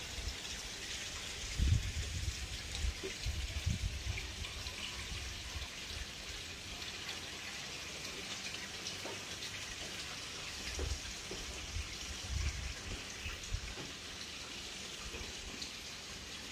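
Steady splashing and trickling of a garden water feature, with water spilling down into a pond. A few low bumps come through in the first few seconds and again briefly later.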